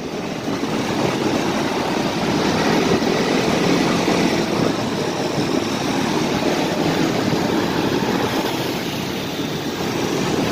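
Steady engine and road noise of a motorcycle riding slowly through congested traffic, heard from the pillion seat, with the motorbikes and cars around it.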